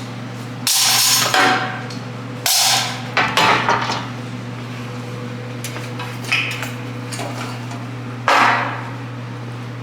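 A handful of loud metallic knocks and clanks, about five over several seconds, the loudest near the end, from metal bumper parts being handled and set down, over a steady low electrical hum.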